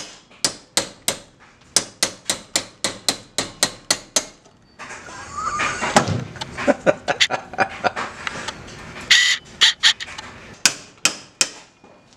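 A hammer tapping on locking pliers (vise grips) clamped on a seized part of a Honda CT90's aluminium cylinder head, about three sharp strikes a second. After about four seconds it turns to mixed scraping and knocking, and a few more quick strikes come near the end as the part is worked loose.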